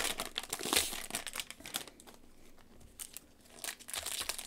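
Trading-card pack wrapper crinkling and cards rustling in nitrile-gloved hands, as a run of short crackles. It goes quieter for about a second and a half midway, then picks up again.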